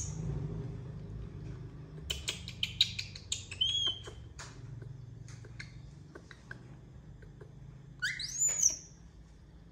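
A monkey gives one high-pitched squeal that sweeps up and falls back, near the end. Before it, a quick run of light clicks and taps with a couple of short high chirps.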